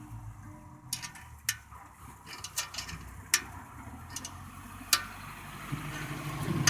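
Scattered sharp metal clicks and taps from handling a clip-on turbo whistle attachment and pliers at a car's exhaust tip, over the low steady hum of the engine idling, which grows louder near the end.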